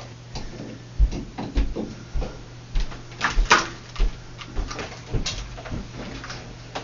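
Irregular knocks, clunks and light clatter as a washing machine's tub and its suspension springs are handled during reassembly, over a faint steady hum.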